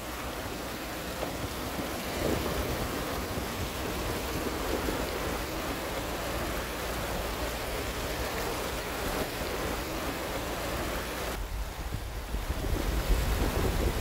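Steady rush of a fast-flowing river, with wind buffeting the microphone and growing stronger near the end.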